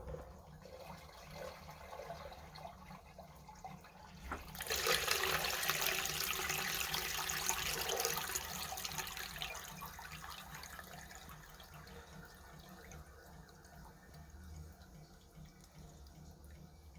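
Water rushing through a drain line and its newly installed backwater valve: it surges in suddenly a few seconds in, like a flush sent down the line, then slowly tapers off to a trickle.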